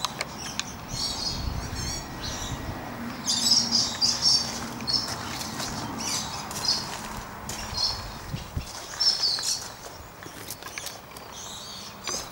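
Birds chirping in short, high bursts repeated about a dozen times.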